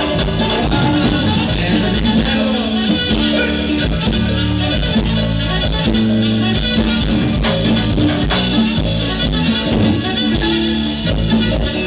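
Live band playing Latin music on electric guitar, bass guitar and drum kit, with a steady beat.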